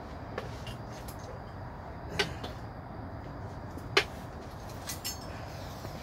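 A few sharp clinks and knocks of tools and metal parts being handled in a car's engine bay during an engine swap, the loudest about two and four seconds in, over a steady low background noise.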